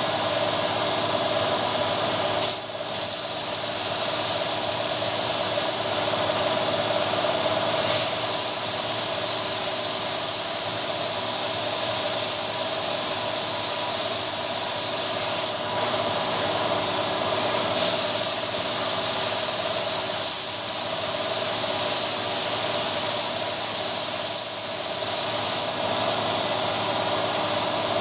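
Air compressor running steadily while a spray gun sprays a top coat of PU lacquer. The gun's air hiss comes in three long stretches of several seconds, with short pauses between trigger pulls.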